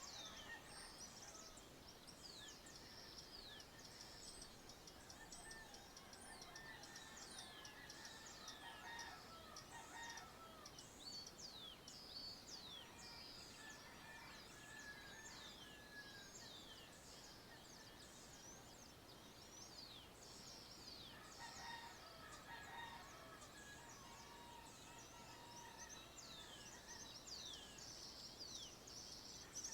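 Faint dawn bird chorus in the countryside: many quick, high, downward-sweeping chirps throughout, with lower fowl calls around ten seconds in and again past twenty seconds.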